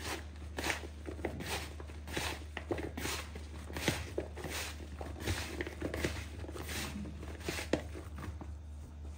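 Hands tossing cut okra in cornflour and spices in a plastic bowl: soft rustling, crunching strokes, about two a second.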